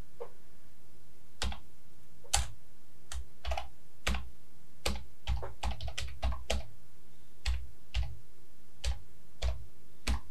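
Typing on a computer keyboard: about seventeen separate keystrokes at an uneven pace, some in quick runs, over a faint steady hum.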